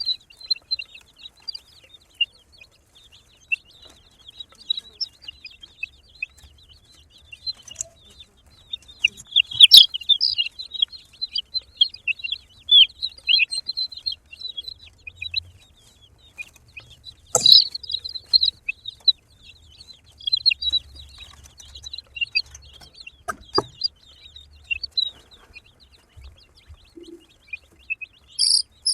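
A group of baby chicks peeping continuously, many short high-pitched chirps overlapping, with three sharp knocks scattered through.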